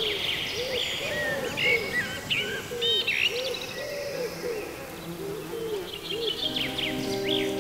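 Woodland birdsong: several small birds chirping and whistling high, over a pigeon's low cooing repeated again and again. Soft music with long held notes fades in about six and a half seconds in.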